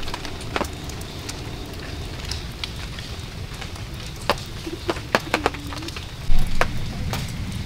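Rain ambience: scattered raindrops tapping and dripping over a low, steady rumble, with one louder bump about six seconds in.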